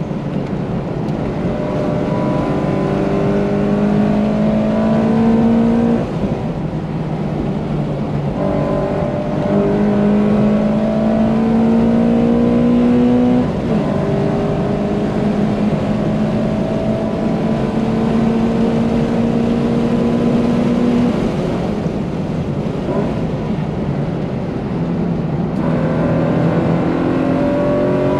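Subaru BRZ's flat-four engine with a catless exhaust and aftermarket header, heard from inside the cabin, working hard at high revs on a race track. Its pitch climbs steadily under acceleration, then drops back several times at shifts and lifts.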